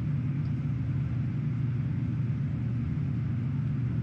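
Steady low mechanical rumble, a constant drone with no change in pitch or level.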